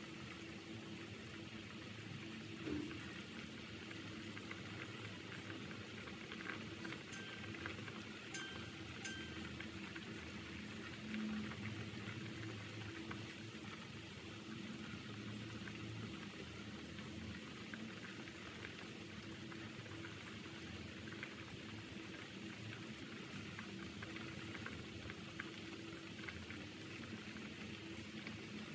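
Pot of pork bone and vegetable soup at a rolling boil, bubbling steadily with many small pops.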